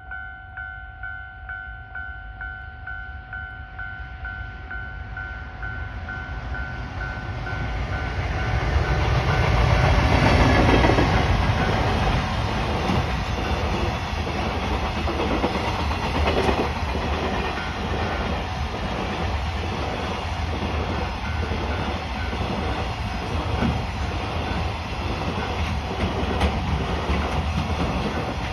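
Japanese level-crossing warning bell ringing in a steady pulse as a JR Freight train hauled by an EF510 electric locomotive approaches, the rumble growing to its loudest about ten seconds in. The freight wagons then roll past with an even clickety-clack of wheels over rail joints, while the bell keeps ringing.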